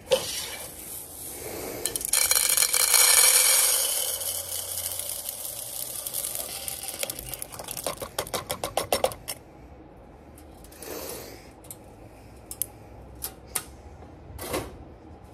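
Freshly roasted coffee beans pouring out of a wire-mesh roaster drum into a canister, a rattling hiss of beans, ending about nine seconds in with a run of quick taps as the drum is shaken out. A few light clicks follow, then a clank near the end as the drum is set back down.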